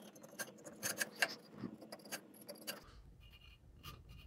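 Pencil writing on a poplar board: short, irregular scratching ticks as figures are marked. They are busiest in the first three seconds and thin out to a few faint ticks after that.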